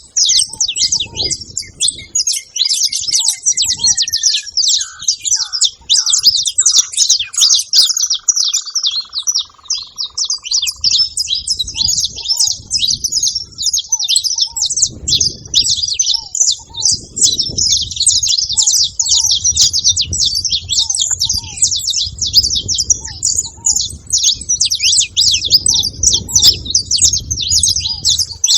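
Saffron finches chirping busily over one another, a dense chorus of high notes that never lets up. Early on a slower series of lower notes falls in pitch, and a short lower note repeats about once a second throughout.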